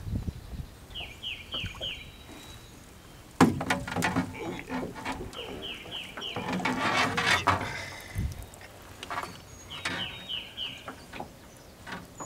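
A bird calls in short runs of about four quick falling notes, three times over. A sharp knock about three seconds in, the loudest sound, is followed by a few seconds of knocking and scuffling on the skiff as a hooked carp is brought to hand.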